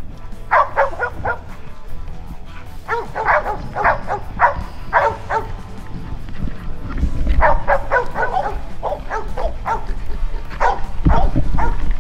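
Hog-hunting dogs barking repeatedly in quick runs of short barks, baying a hog, over a low rumble.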